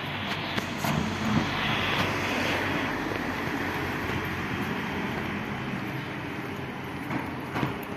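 A road vehicle passing along the street, its engine and tyre noise swelling over the first couple of seconds and then slowly fading.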